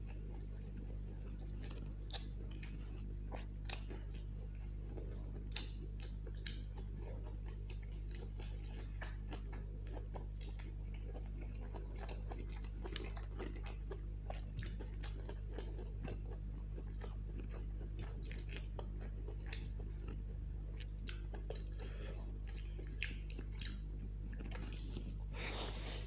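Close-miked chewing of chicken chow mein: a dense, irregular run of small wet mouth clicks and smacks, over a steady low hum.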